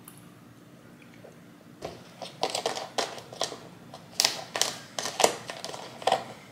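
A quick run of sharp clicks and taps, about a dozen after a quiet first two seconds, from drink containers being handled on a kitchen counter: a cold brew bottle put down and an oat milk carton's plastic cap being opened.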